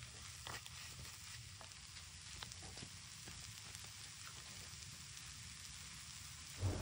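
A stir-fry of vegetables, egg and leeks sizzling faintly in a pan, with a few light clicks in the first half.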